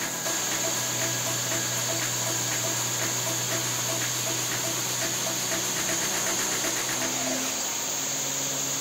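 Two angle grinders running steadily with a high whine: one spins a welded steel shaft while the other's flap disc grinds the turning shaft's surface smooth, turning it on the shaft in place of a lathe.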